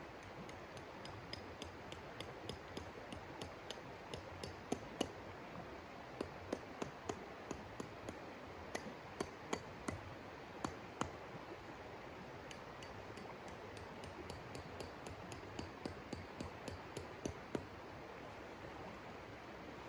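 Shallow river flowing steadily, with a run of sharp, close clinks and taps at an irregular pace of about two or three a second that stops near the end.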